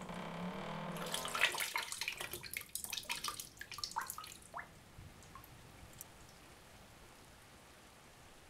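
Water splashing at a bathroom sink as a man washes himself by hand, with a run of sharp splashes for about four seconds, then a few scattered drips. A low drawn-out tone fades out about a second in.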